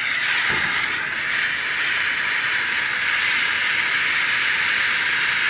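A loud, steady hiss of a pressurised spray jet.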